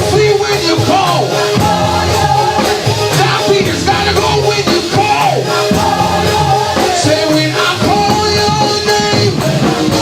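Church praise-and-worship music: singing voices over a band with bass and a steady beat.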